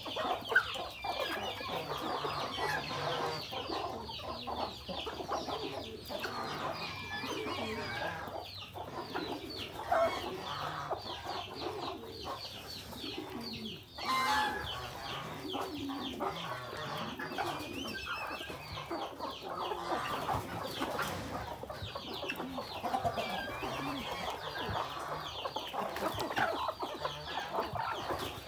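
A flock of chickens, hens and roosters, clucking continuously as they feed together at a trough of wet mash.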